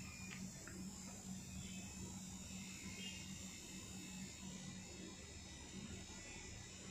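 Electric tattoo machine buzzing steadily and faintly as it inks the skin of a shoulder.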